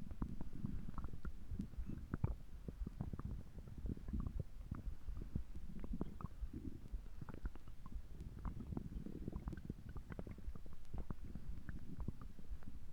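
Stomach gurgling and rumbling: a continuous low rumble with many short, irregular gurgles and pops throughout.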